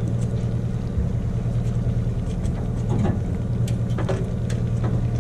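A party boat's engine idling steadily with a low drone, with a few light clicks scattered through it.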